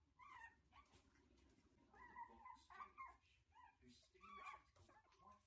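Shih Tzu puppies whining, a handful of short high-pitched whines and yips coming and going, quiet overall.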